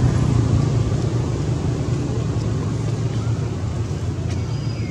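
Steady low rumble of background noise, even and unbroken throughout.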